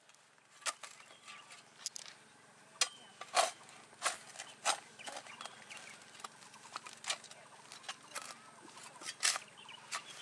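Spade blades stabbing and scraping into grassy soil and turf, heard as irregular sharp crunches and scrapes, some coming in quick pairs.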